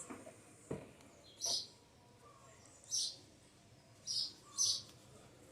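A bird chirping: four short, high chirps at irregular intervals, with a single light click about 0.7 seconds in.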